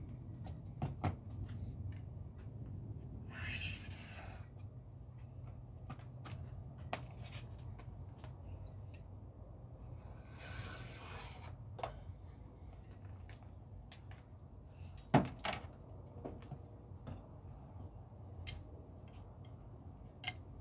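Scattered clicks and knocks from work on a car's windshield during its removal, with the sharpest pair about 15 seconds in. Two hissing scrapes of about a second each sit over a low steady hum.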